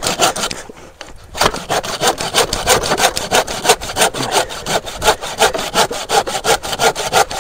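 Hand saw cutting through a wooden board in quick, even back-and-forth strokes, about four or five a second. There is a brief pause about a second in, then steady sawing.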